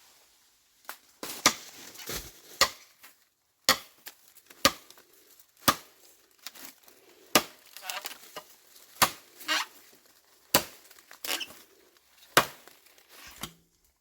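Repeated sharp chopping or striking blows, about one a second and unevenly spaced, with rustling and crinkling between them.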